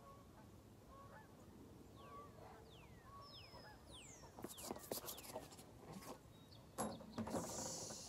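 Faint repeated bird calls in the background, then a dog's running footfalls and a sharp knock about seven seconds in as the dog steps onto a wooden plank laid on the ground, followed by a brief rustle.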